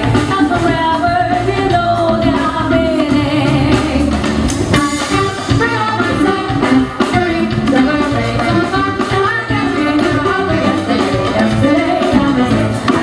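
A woman singing lead vocals with a jazz big band behind her, horns and a rhythm section with drums playing a Latin-flavoured jazz tune.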